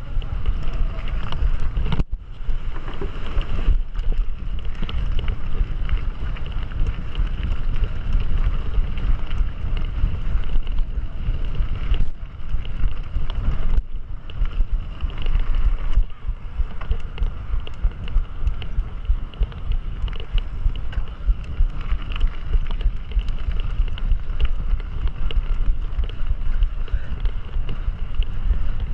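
Wind buffeting the microphone of a camera carried along on a mountain bike: a steady, heavy low rumble that flutters constantly.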